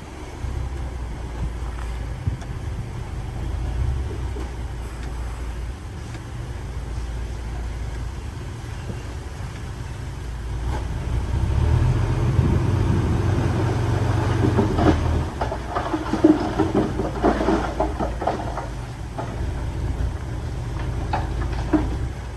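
Heavy diesel construction machinery running with a steady low rumble that grows louder about eleven seconds in. Scattered knocks and clatter come through the middle part.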